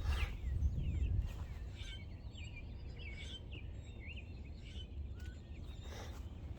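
Birds chirping: many short, high calls, some gliding up or down in pitch, over a low steady rumble.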